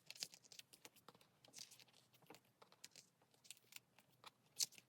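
Faint handling of a printed album booklet: a scatter of light paper rustles and small taps as pages are turned, the crispest rustle about four and a half seconds in.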